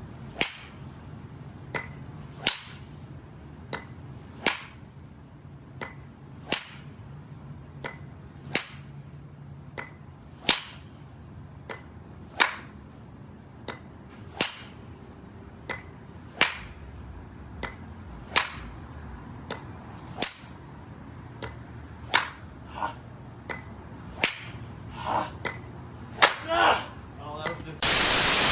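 Sharp cracks repeating about once a second, every other one louder, over a low hum. Near the end comes a loud burst of static-like noise.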